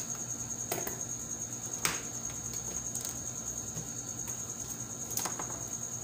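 Three short clicks and knocks as a plastic push-button switch and its wires are handled and set down on a bench: one just under a second in, one near two seconds, one a little after five seconds. A steady high-pitched tone runs underneath.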